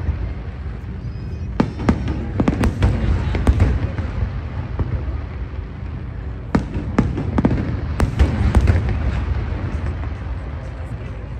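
Fireworks display heard across the river: a continuous low rumble of shell bursts, broken by repeated sharp cracks, in one cluster early on and another past the middle.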